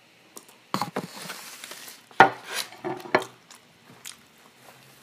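Cutlery clinking and scraping against a dish in a few sharp knocks, with the mouth sounds of eating between them.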